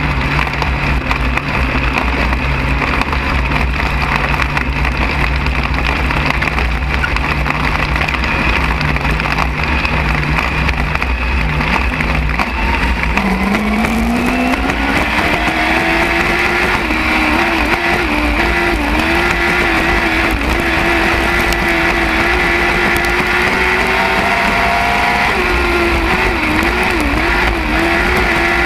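Lightning sprint car engine running at low, steady revs, then about 13 seconds in the revs climb quickly and hold high, dipping briefly a few times, as the car accelerates on the track.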